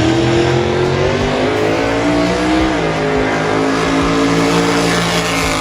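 Vehicle engine accelerating. Its pitch climbs, drops suddenly at a gear change a little under three seconds in, then holds steady.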